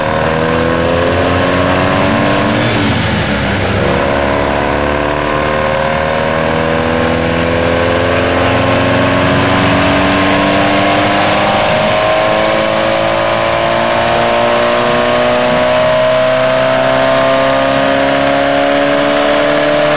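Turbocharged 1.6-litre Geo Storm engine, fitted with a Ford Thunderbird turbo, pulling hard under load on a chassis dyno. Its pitch climbs, drops once about three seconds in, then climbs steadily again. The turbo is failing and spitting oil out of the tailpipe.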